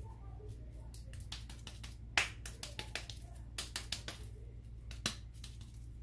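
Hands patting and rubbing together with raw minced meat on the palms: a run of irregular wet smacks and clicks, two louder slaps about two and five seconds in.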